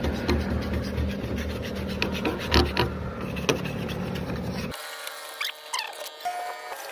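Hand-held scraper blade scraping old paint off a fuel dispenser's sheet-metal panel: a run of rough, repeated scrapes over a steady low hum. About two-thirds through the sound cuts off suddenly, leaving fainter clicks and scrapes.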